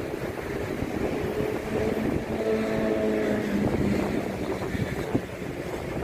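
Wind buffeting the microphone over breaking surf. A motor vehicle passes from about two seconds in, its engine note held for a couple of seconds and dipping slightly in pitch as it goes by.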